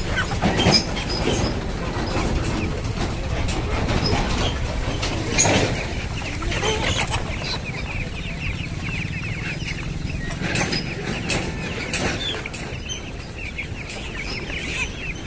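A flock of country chickens clucking, with a few louder calls in the first half. From about eight seconds in, many young guinea fowl keep up a dense chatter of rapid, high chirps.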